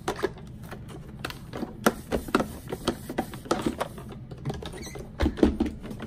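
Irregular small clicks, knocks and rubbing of hard plastic as an iRobot Roomba i7 robot vacuum's body and parts are handled and cleaned, growing louder and more frequent near the end.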